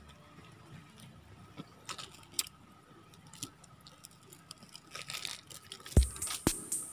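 Faint patter and light ticks of coarse iodized salt grains landing on raw squid and a wet banana leaf. About six seconds in, electronic music with a steady beat of about two strikes a second starts and becomes the loudest sound.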